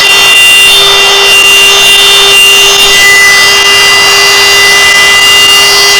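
A high-speed electric power tool running flat out with a steady, high-pitched whine. It spins up just before and holds one pitch throughout, while it is pressed into sheet metal that it is barely cutting.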